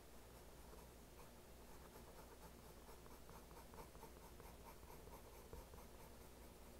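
Faint graphite pencil strokes on sketchbook paper: quick hatching, about three short scratchy strokes a second, over a low steady hum.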